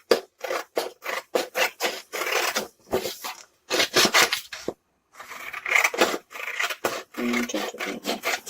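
Scissors snipping through printed paper, a quick run of short cutting strokes about two or three a second, with a brief pause about five seconds in.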